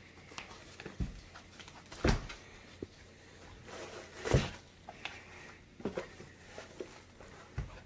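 Handling noise from a pair of EVS TP199 knee guards being picked up and turned over: about five dull knocks spread out, with light rustling between them.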